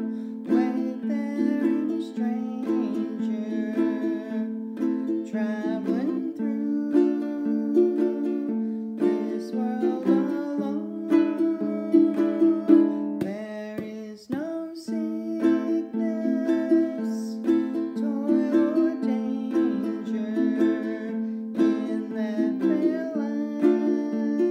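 Acoustic ukulele played in a slow country strum (a thumb pluck, then down and up strums) over a minor-key chord progression, with a brief break about halfway through.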